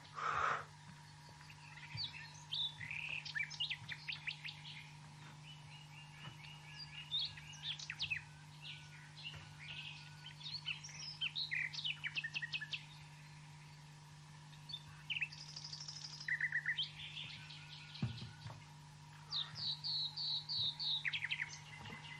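Dawn birdsong: several small birds chirping and trilling in short, scattered phrases, over a faint steady hum.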